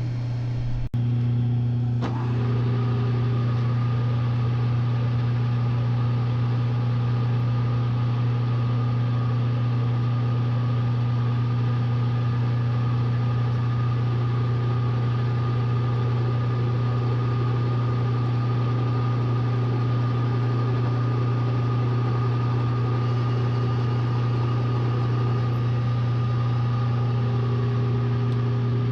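Bridgeport milling machine running, powered through a rotary phase converter: a steady electric-motor hum that does not change, with a brief cut about a second in.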